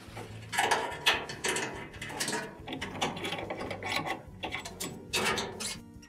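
Metal coil springs being unhooked from a Whirlpool dryer's lower front frame: a series of sharp metallic clicks and rattles.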